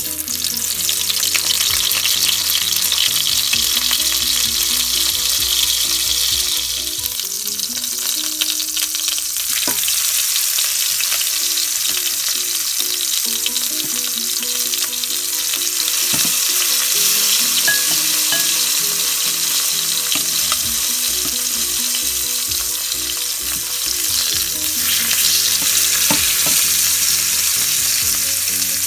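Tuyo (dried salted fish) sizzling as it fries in hot oil in a pan, the sizzle starting sharply as the fish is laid in.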